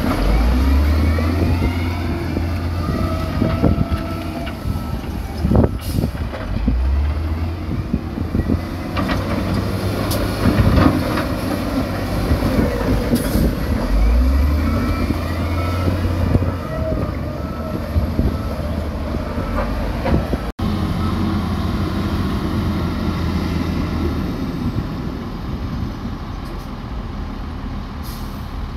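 Heavy diesel earthmoving machinery working: a deep, steady engine rumble with scattered metallic clanks and squeals.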